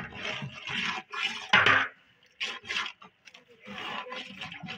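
Metal ladle stirring and scraping through a wet onion-and-tomato masala in a large steel pot, in irregular rasping strokes about half a second long.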